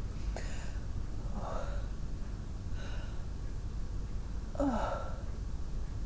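A woman's gasping, catching breaths as a sneeze builds: four in all, the last and loudest near the end with a short voiced catch.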